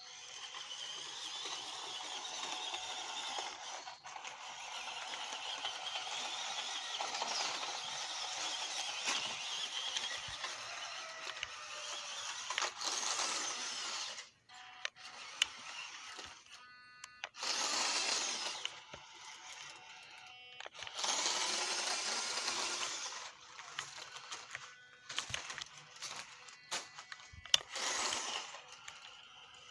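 Toyota Hilux-style RC 4WD crawler truck's small electric motor and geartrain whining as it drives. It runs steadily for over ten seconds, then in three short bursts of throttle.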